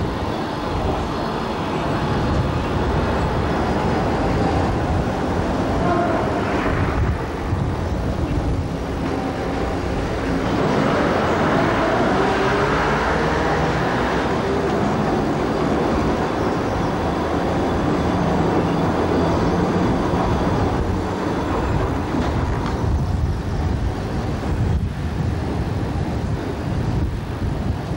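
Hong Kong double-deck electric tram running along street track, heard from its top deck: a steady rumble of wheels on the rails and running gear, with a faint whine that rises and falls around the middle.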